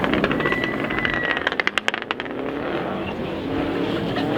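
Rally car engine on a snow stage coming off the throttle with a quick run of sharp exhaust pops in the middle, then picking up and accelerating again near the end.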